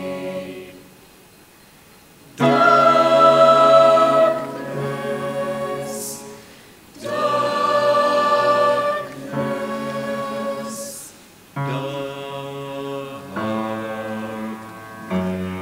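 Choir singing in long held phrases, with short breaks between phrases about two seconds in and about seven seconds in.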